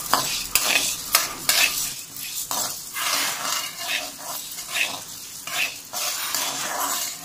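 Metal spoon stirring chana dal as it dry-roasts in a metal kadai: repeated irregular scrapes of the spoon on the pan and the dry rattle of the lentils being turned over.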